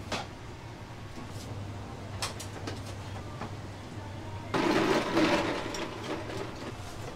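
Working noodle-kitchen sounds: a steady low hum of kitchen equipment with scattered clinks of metal utensils. About two-thirds of the way in comes a louder burst of splashing water, lasting about a second and a half, as noodle strainer baskets are worked in the boiling water.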